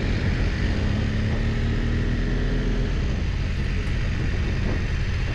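Motorcycle engine running steadily, a dense low rumble with a faint hum in its note that shifts slightly about three seconds in.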